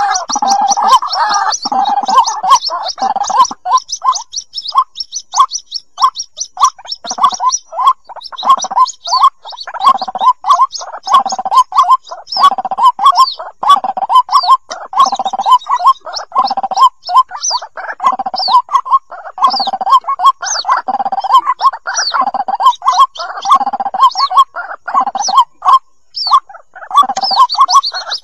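White-breasted waterhen chicks calling for the parent: short calls in quick succession, several a second, with thin high peeping over them. It is a lure recording of chick calls that draws adult waterhens out of cover.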